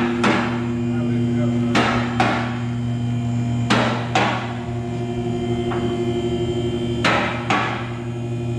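Hammer blows on metal, mostly in pairs about half a second apart, each ringing briefly, over a steady low electrical hum.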